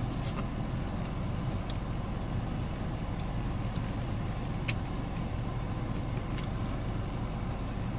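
Steady low hum of an idling vehicle engine heard from inside the cab, with a few faint clicks of a plastic fork against a food container.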